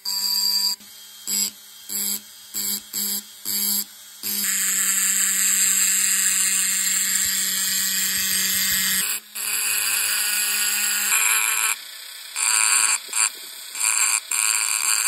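Handheld rotary engraving tool running with its conical bit grinding into glass. It comes in short chopped bursts at first, then runs steadily for several seconds, then cuts in and out again near the end.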